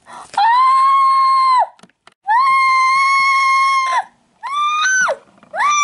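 A girl singing high, shrill notes: two long held notes, then shorter ones that slide up and down, which she herself likens to a dying cat.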